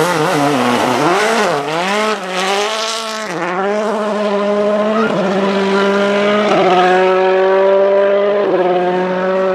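Rally car engines at full song on a snow stage: a World Rally Car passes close, its engine revving up and down sharply for about three seconds. Then another rally engine holds a steady note, stepping in pitch a few times as it shifts gears.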